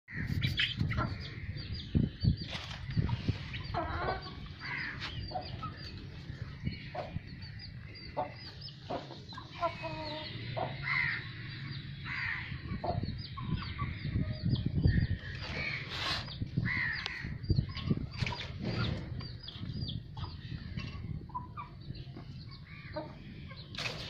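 A flock of Aseel chickens clucking and calling in a pen, with many short high chirps throughout and a steady low rumble underneath.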